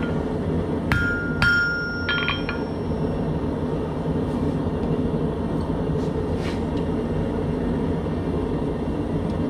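Three sharp metallic clinks between about one and two seconds in, each with a brief bright ring, as scrolling tongs work the hot leaf's stem into a loop on the anvil. Under them runs the forge's steady rush.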